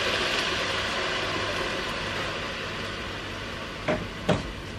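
Blended pepper and onion mix sizzling in hot oil in a pot, the hiss slowly dying down. Two light knocks come near the end.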